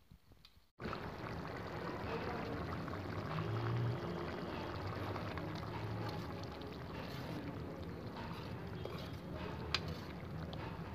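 Thin curry gravy with potato and cauliflower simmering in a pot and being stirred with a metal spoon: a steady bubbling, sloshing hiss with a low hum underneath, starting abruptly about a second in. A single sharp click of the spoon near the end.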